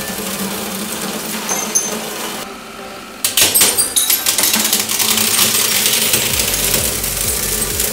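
A 100-ton hydraulic press crushing a stack of white plates: sharp cracking and crunching of shattering plates from about three seconds in, over the steady hum of the press.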